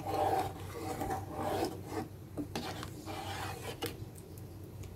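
A spatula stirring chicken curry gravy in a pan, scraping and rubbing against the pan in two rasping bouts, the second ending in a light tap.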